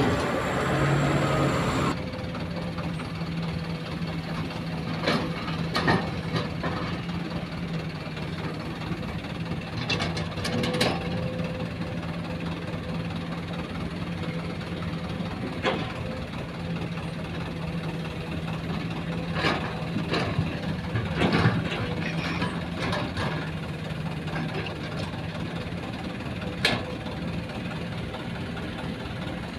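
Heavy diesel engines of a Sumitomo excavator and a dump truck running steadily at the dig, a low even drone, with scattered knocks and clanks from the work. The sound changes suddenly about two seconds in, when the shot cuts to the excavator.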